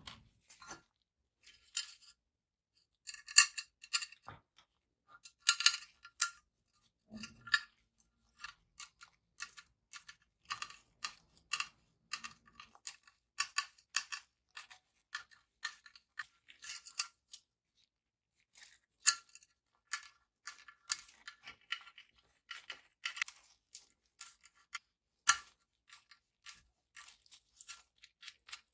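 Irregular small clicks, taps and scraping rustles, typical of small case parts and screws being handled and fitted during a mini PC case build. The loudest clicks come a few seconds in and again past the midpoint.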